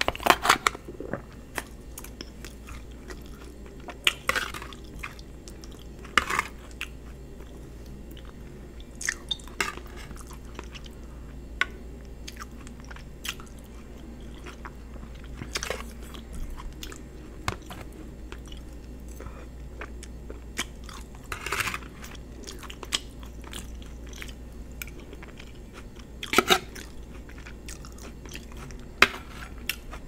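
Close-miked chewing and biting of gravy-and-cheese fries, soft wet mouth sounds with sharp crunches and clicks every few seconds.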